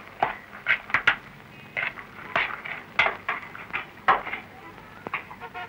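Dishes and utensils clinking and knocking as food is served and handled at the table: a string of separate short, sharp sounds at irregular intervals.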